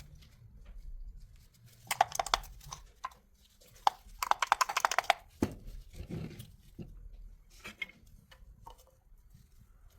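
Hand tools working on a car starter motor on the bench: two quick runs of sharp rapid clicks, about two seconds in and again around four to five seconds in, with a few single knocks between and after.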